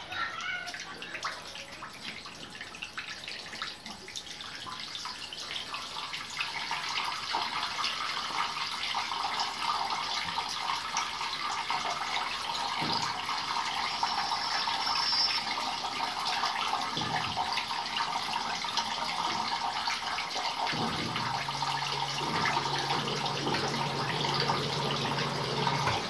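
Whirlpool top-load washing machine draining, water rushing out through its drain hose, growing louder over the first several seconds and then holding steady. About 21 seconds in, a steady low motor hum joins as the machine starts its spin to wring the clothes.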